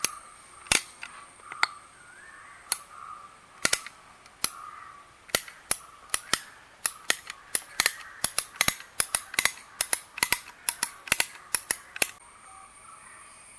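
Silicone caulking gun loaded with wall putty being squeezed over and over, its trigger and plunger clicking sharply as the putty is pushed through toward the nozzle. The clicks are spaced out at first and come faster from about five seconds in.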